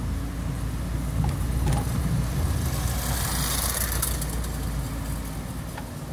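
Car cabin sound while driving slowly: a steady low rumble of engine and tyres, with a rushing hiss that swells and fades about three to four seconds in.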